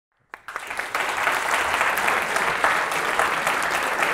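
Audience applauding, a dense steady patter of many hands clapping that starts abruptly about a third of a second in.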